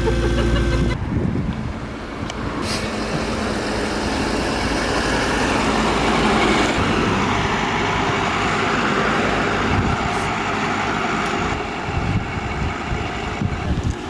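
Motor vehicle or machinery running, with a steady rushing noise; the sound changes abruptly about a second in.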